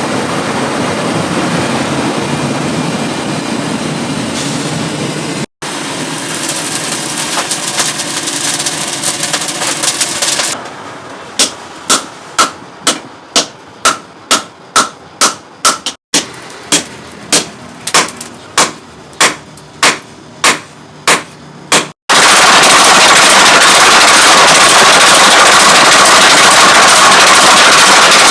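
Metal-forging hammer blows on steel, evenly spaced about two a second, in two runs split by an edit. Before them comes a steady workshop noise, and after them a loud, even rushing noise.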